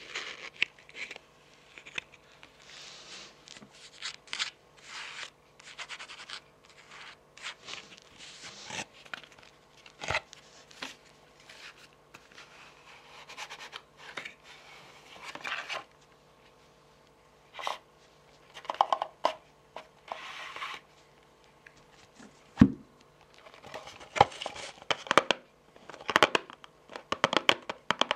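Long fingernails scratching and tapping on a cardboard tarot card box and along the edges of the card deck, in irregular scratchy strokes with a few sharp taps, the loudest about two-thirds of the way through.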